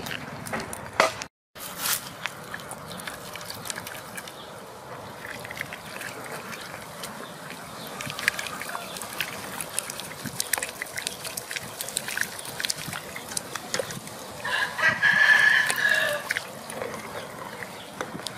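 A rooster crowing once near the end, the loudest sound here, over scattered light clicks and ticks.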